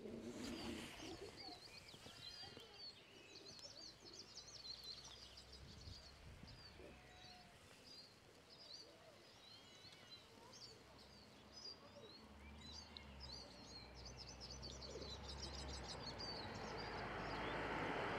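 Faint birdsong of small birds, many short high chirps and trills. Near the end a car approaches along the road, its tyre and engine noise growing steadily louder.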